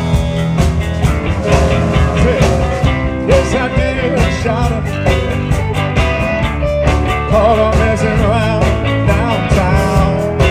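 Live blues band playing with electric guitars, a lead line of bent, wavering notes over the band's steady rhythm.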